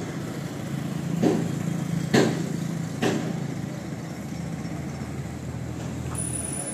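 Kubota MU5501 tractor's four-cylinder diesel engine idling steadily, with three sharp knocks about a second apart in the first half.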